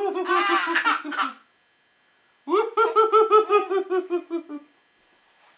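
A baby laughing in two bouts of quick, pulsing belly laughs: the first stops about a second and a half in, and the second starts about a second later and sinks a little in pitch as it fades.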